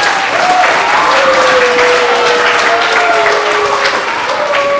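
Hall audience of children and adults applauding steadily, with a few drawn-out cheers carrying over the clapping.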